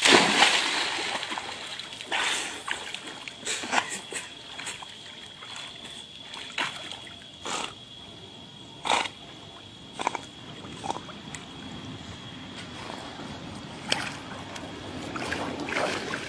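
A dog plunging into lake water with a loud splash, then irregular splashing and sloshing as the dog swims out to a man in the water and paddles back to the bank with him.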